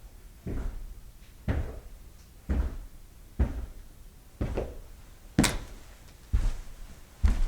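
Footsteps of one person walking at an even pace, about one step a second, each a dull thud, with one sharper click about five seconds in.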